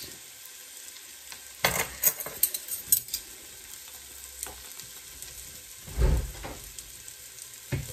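Chopped onions sizzling steadily in oil in a pot on the stove. A quick run of sharp clicks and knocks comes about two seconds in, and a dull thump about six seconds in.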